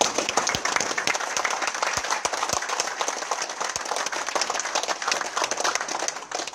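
A group of people clapping together in sustained applause, which stops near the end.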